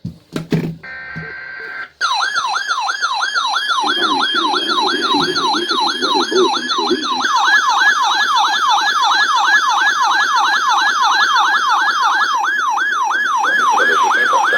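A few seconds of short buzzy SAME digital header bursts, then a weather alert radio's warbling siren alarm sweeping up and down about three times a second, set off by a severe thunderstorm warning.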